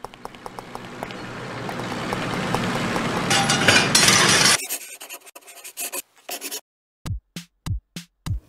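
A swell of rushing noise with a low hum under it, growing steadily louder for about four and a half seconds to a loud peak, then cutting off suddenly. After that come a few separate clicks and knocks.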